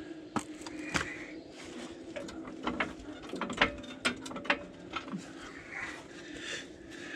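Irregular metallic clicks and clanks of tools and parts being worked on a truck's front suspension, over a steady low hum.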